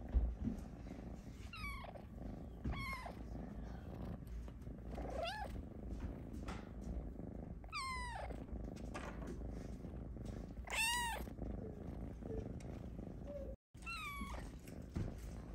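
Snow Lynx Bengal kitten purring steadily while being stroked, with about six short meows over the purr. The meow about two thirds of the way through is the loudest.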